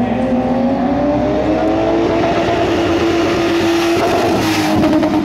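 BMW E30 saloon's engine pulling hard in one gear, its pitch rising steadily for about four seconds, then easing off, with a short burst of tyre noise near the end as the car is thrown through a turn.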